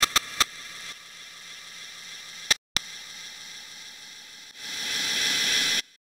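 Hissing static that starts with a few sharp clicks. About two and a half seconds in it drops out briefly between two clicks, and near the end the hiss swells louder and brighter before cutting off abruptly.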